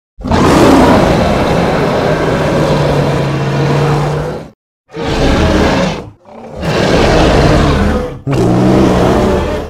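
Sound-effect roars of an imaginary gorilla-tiger hybrid creature: one long roar of about four seconds, then three shorter roars, each cutting off sharply into a brief silence.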